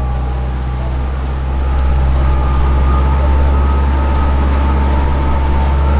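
Canal tour boat's motor running steadily under way: a loud low rumble with a faint, steady high whine on two notes.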